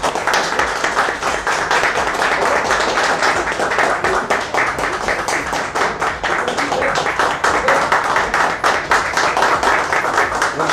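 A group of people clapping: dense, steady applause that starts abruptly.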